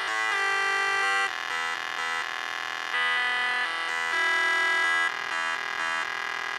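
Electronic synth-lead music played through a Samsung Galaxy S4's single mono speaker: buzzy lead notes, some short and some held, changing pitch in quick succession, thin with almost no bass.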